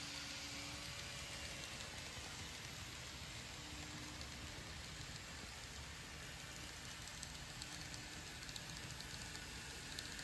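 Kato model Amtrak passenger train running on its layout track: a faint, steady rolling hiss from the motor and wheels, with a few light clicks near the end.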